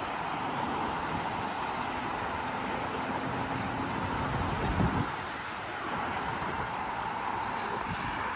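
Steady road traffic noise from cars passing on the parallel bridge, with wind on the microphone and a brief gust about five seconds in.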